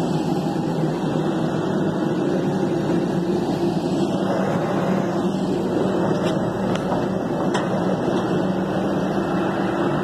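Steady mechanical drone of an airliner and its ground equipment at the stand on an airport apron, with a low hum running through it. A few light taps near the middle come from footsteps on the aluminium boarding stairs.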